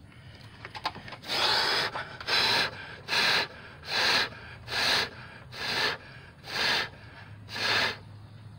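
Rhythmic scraping or rubbing by hand, eight even strokes a little more than one a second, starting about a second in.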